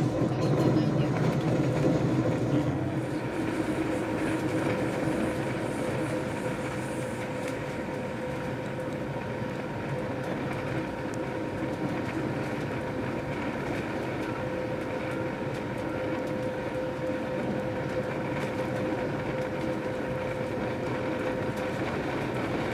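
Regional diesel multiple unit running at speed, heard from inside the carriage: steady rumble and rail noise with a constant whine, a little louder in the first few seconds before settling.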